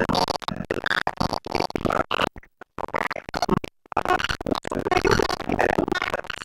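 Glitched, stuttering synthesizer audio from a Qu-Bit Data Bender eurorack module, the sound chopped into short fragments with sudden cut-outs and two brief dropouts to silence midway.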